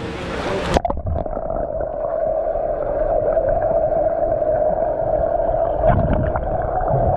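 Camera microphone plunged underwater in a swimming pool about a second in: the sound turns muffled, with churning water noise and a steady hum.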